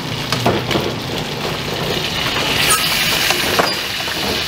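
Chicken pieces sizzling in hot oil in an aluminium wok, with metal tongs clicking against the pan several times as the pieces are turned and lifted out.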